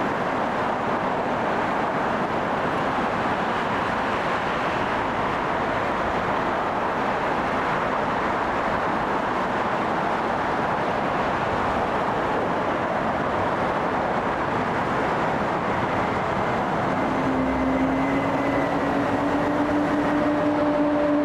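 Airliner engine noise: a steady, broad rushing roar. About three-quarters of the way through, a low hum and a higher tone come in and rise slightly in pitch, and the sound grows a little louder near the end.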